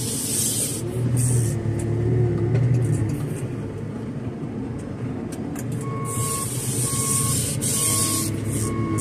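JCB telehandler's diesel engine running under load, heard from inside the cab, with a hydraulic whine rising and falling as the boom moves the straw bales, and a few bursts of hiss. About six seconds in, the reversing alarm starts beeping, roughly once a second.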